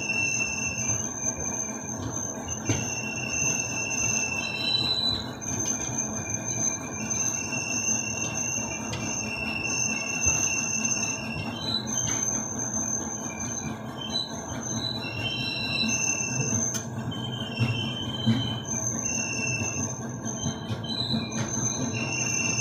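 Passenger train coach running slowly into a station: a steady rumble with high-pitched wheel squeals that come and go every second or two, often several at once, as the train slows.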